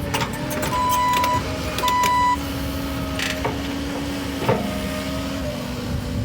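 Excavator engine running steadily with a low hum. About a second in there are two short high beeps, and later two brief knocks, typical of the bucket working the dirt.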